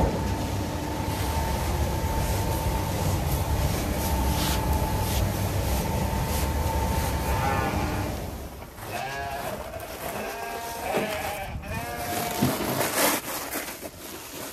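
A steady rushing noise for about eight seconds, then sheep bleating over and over, many short calls overlapping.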